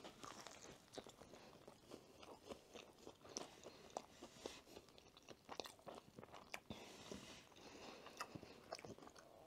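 Faint close-miked eating: a bite into a sandwich, then chewing with scattered soft crunches and mouth clicks.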